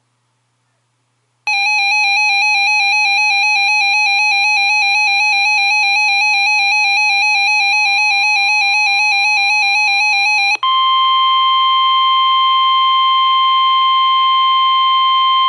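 NOAA Weather Radio alert signal. About a second and a half in, a loud warbling electronic alert tone with buzzy overtones starts, over faint repeated SAME data bursts. About ten seconds in it gives way to the steady 1050 Hz weather radio warning alarm tone, which runs on.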